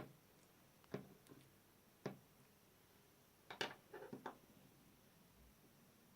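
Clear slime being squeezed and pressed, giving soft clicks and pops: single ones about once a second, then a quick run of several about three and a half seconds in.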